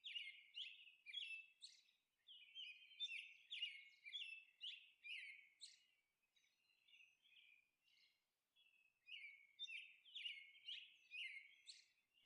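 Faint bird chirps repeating a few times a second, with a pause of about three seconds midway before they resume.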